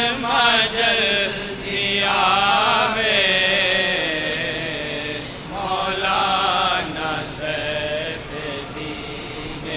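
A voice chanting in long held phrases that waver in pitch, with melismatic runs about two seconds in and again about six seconds in.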